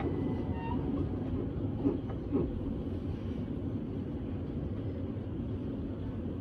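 S-Bahn train running between stations, heard from aboard: a steady low rumble of wheels on the rails, with two light knocks about two seconds in.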